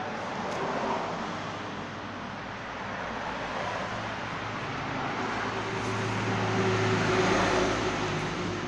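A motor vehicle passing by: a steady engine hum with road noise grows louder to a peak about seven seconds in, then fades.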